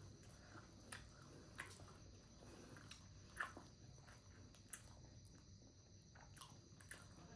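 Faint chewing and biting of momos (steamed dumplings), with scattered soft wet mouth clicks.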